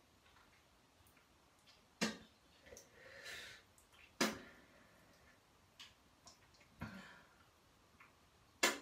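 Small hard objects being handled, giving sharp clicks and knocks. Four stand out, about two seconds apart, the last the loudest, with fainter ticks between them. There is a long hissing breath about three seconds in.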